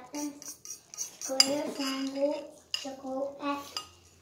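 A metal fork scraping and clinking against a china bowl in short repeated strokes as the last of the rice is scooped up.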